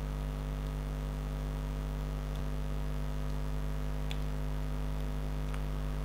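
Steady electrical mains hum, a low drone with a stack of even overtones, with a few faint ticks.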